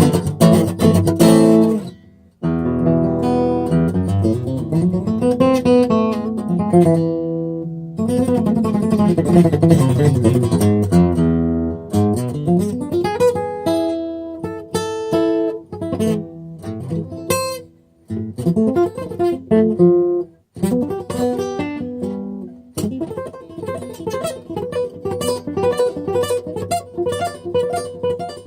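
Martin HD-28 dreadnought acoustic guitar played solo, with picked notes ringing in rising and falling runs. The playing breaks off briefly a few times, then turns denser and quicker near the end.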